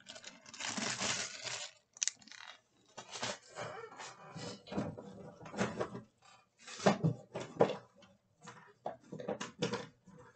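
Irregular rustling and crinkling of packaging and small items being handled and rummaged through, with light clicks and knocks.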